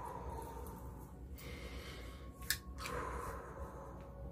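A man taking slow, deep breaths close to the microphone, a few long breaths in and out, with one sharp click about two and a half seconds in.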